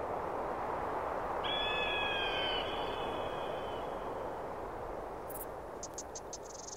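Steady rushing, wind-like outdoor ambience. A single long bird call, falling slightly in pitch, comes about a second and a half in, and four quick high clicks like insect chirps follow near the end.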